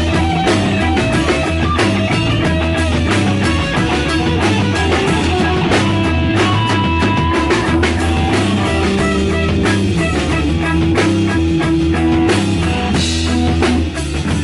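Rock band playing live: guitar over a drum kit, with drum hits throughout.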